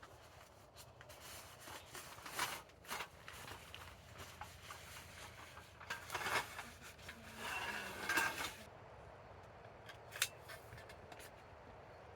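Intermittent clicks, rustling and scraping of small objects being handled, with a few louder bursts.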